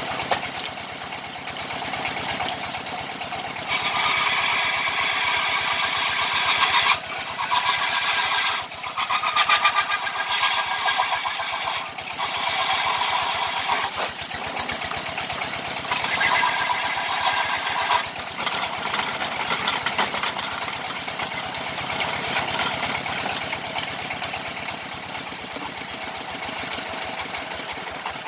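Power tool cutting and carving wood, running with a fast, even buzz that grows louder in several stretches as it bites into the work.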